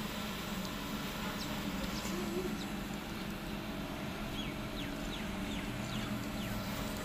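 Birds chirping over a steady low hum, with a quick run of short falling chirps in the second half. A few faint clicks come from a cat crunching dry kibble.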